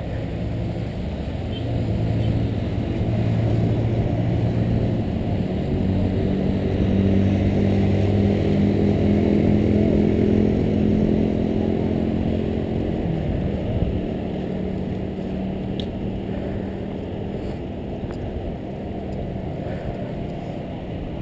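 Wind rushing over a bike-mounted GoPro Hero2 microphone while riding in a group on a bike path, a steady low rumble along with the tyres on asphalt. A droning hum swells in about two seconds in and fades out around thirteen seconds.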